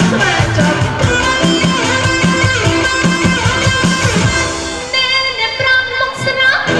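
Live band music for a Khmer song, with guitar over a steady drum beat. About five seconds in the beat drops away, leaving held notes, and it comes back near the end.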